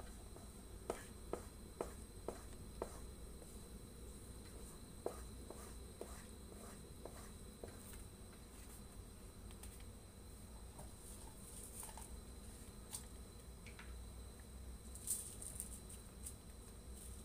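Wooden spatula knocking and scraping against a wok while stirring thick simmering pandan sago: a run of about five light taps roughly half a second apart in the first few seconds, then a few scattered soft ticks and pops from the simmering mixture.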